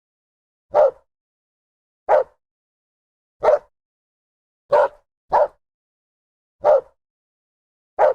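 A dog barking: seven single, short barks spaced evenly about every second and a half, with two barks coming close together in the middle.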